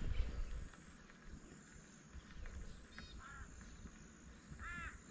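Birds calling: short calls, each rising then falling in pitch, in small groups about three seconds in and again near the end. A low bump at the very start.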